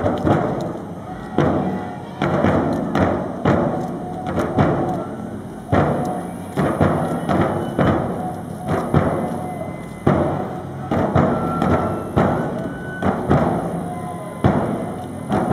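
Festival procession drumming: a large drum struck about once or twice a second in an uneven rhythm, each heavy beat ringing out, with voices under it.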